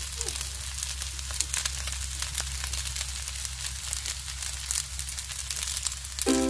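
Shrimp fried rice sizzling in a hot pan: a steady crackling hiss. Background music comes back in near the end.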